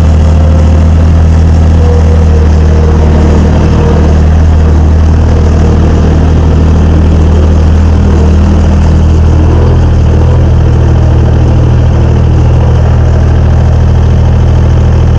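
Mustang 930A skid steer engine idling, loud and steady, its note shifting slightly about halfway through.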